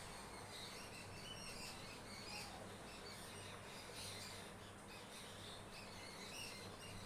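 Faint, scattered bird chirps in the background over a low, steady hum.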